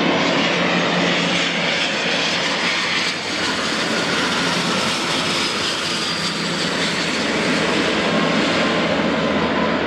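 Fixed-wing airplane's engines running loudly and steadily, with a faint high whine that slowly falls in pitch.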